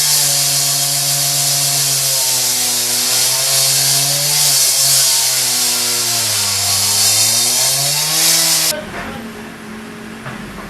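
Power saw cutting, running loud with a strong hiss. Its motor pitch sags under load and then picks up again, before it stops abruptly near the end.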